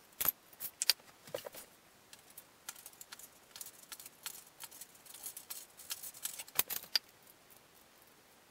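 A quick, irregular run of small hard clicks and light rattles, like small parts being handled and knocked together, stopping about seven seconds in.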